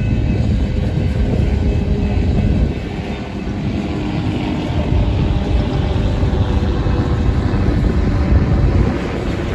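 Empty coal gondolas of a freight train rolling past on the rails: a steady, loud, low rumble of wheels and car bodies, briefly a little quieter about three seconds in.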